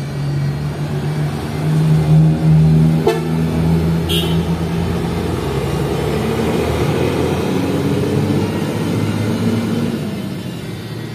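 A bus passing with its engine running and its multi-tone telolet horn sounding: first long steady tones, then a tune of tones stepping up and down in pitch. A short hiss comes about four seconds in.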